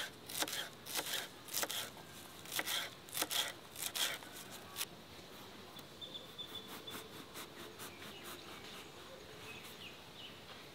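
Kitchen knife chopping leafy greens on a wooden cutting board: an irregular series of sharp taps for about five seconds, then only faint light ticks.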